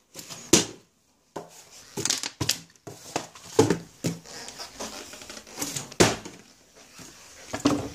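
Hands handling packaging on a kitchen counter: irregular knocks of boxes and a plastic tub being moved and set down, mixed with crinkling plastic, the sharpest knock about six seconds in.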